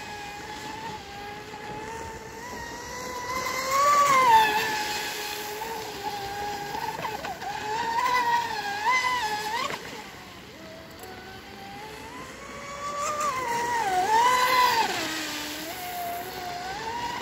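Electric motor of a TFL Pursuit RC speedboat whining at speed across the water, with a hiss of spray. The pitch rises and falls as the throttle and turns change, and the sound swells twice as the boat passes closer.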